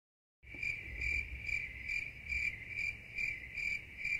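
Cricket chirping in a steady rhythm, about two chirps a second, starting about half a second in.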